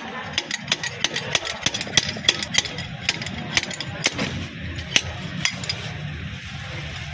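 Hand tools and metal parts clinking and knocking, many irregular sharp clicks, over a low steady hum.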